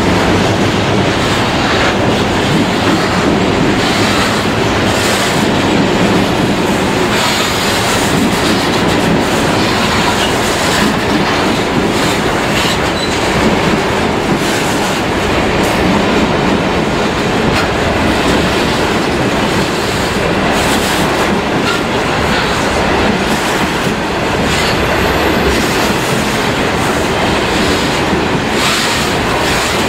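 Loaded grain hopper wagons rolling steadily past close by, a continuous heavy rumble of wheels on rail with scattered clicks as the wheels cross rail joints.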